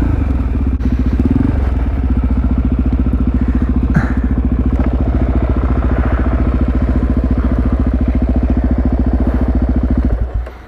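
Supermoto motorcycle engine running steadily at low revs with an even, fast pulse, then switched off about ten seconds in.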